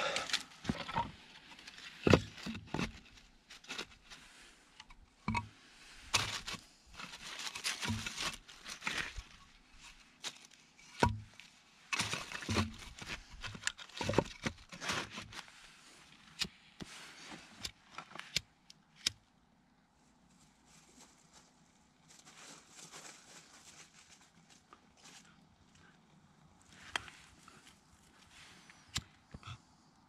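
Split kindling sticks and dry leaves being handled in a stone fire ring: a run of sharp wooden knocks and crinkling rustles, then quieter, softer rustling and scraping for the last third.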